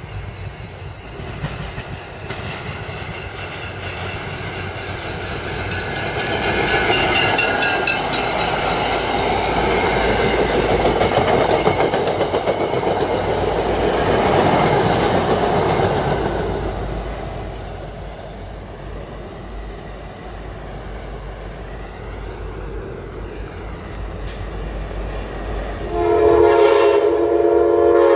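MBTA push-pull commuter train passing at speed without stopping: rumble and clickety-clack build as it approaches, with the cab car's rapid bell ringing, peak as the coaches rush by, then fade. Near the end, after a cut, an Amtrak GE P42 locomotive sounds its horn loudly.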